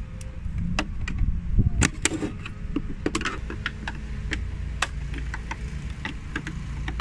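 Irregular plastic clicks and knocks as hands work the Ford Super Duty tow mirror's housing, prying at the tab to free the amber turn-signal lens, over a steady low rumble.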